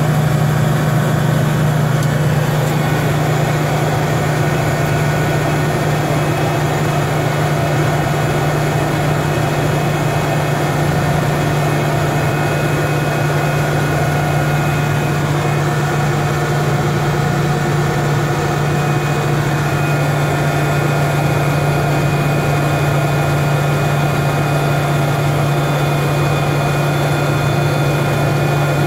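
GE H80 turboprop engine of a de Havilland Turbine Otter floatplane running at low power while taxiing on the water, heard from inside the cockpit: a steady drone with a strong low hum.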